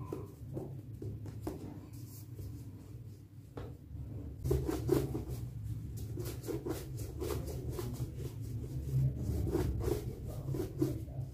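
A hand pressing and patting a ball of dough flat, then, from about four seconds in, a plastic rolling pin rolled back and forth over a thin sheet of dough on a glass board: a steady rubbing rumble with small knocks.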